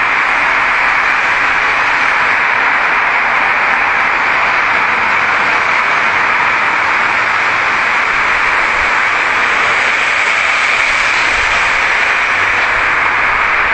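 Steady, loud rushing hiss that does not change, with no distinct sounds standing out: the background noise of a boosted ambient audio recording.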